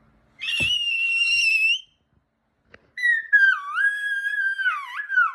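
A baby's two long, high-pitched squeals: the first held at a steady pitch, the second wavering and dipping in pitch near its end. A short knock sounds about half a second in.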